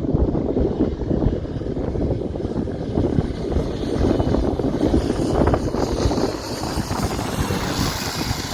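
Jet aircraft engines: a dense, steady rumble, with a hiss higher up that builds from about halfway through.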